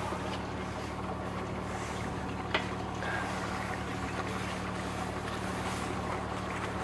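The engine of an old wooden fishing boat running steadily under way, a low even hum over a hiss of water and wind. A single sharp click about two and a half seconds in.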